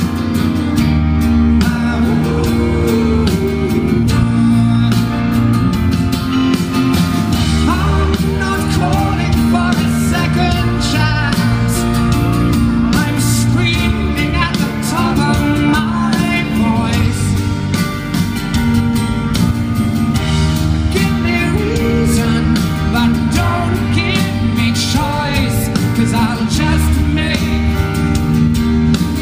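Live band music: a male singer with acoustic guitar, backed by drums and electric guitar, playing a song.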